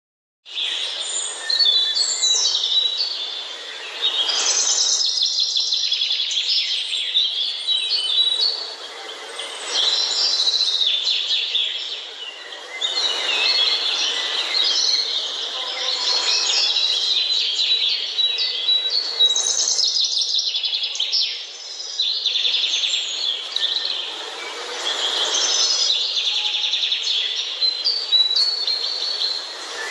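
Several songbirds singing and chirping at once, a dense mixed chorus of high, quick notes and trills that keeps on without a break.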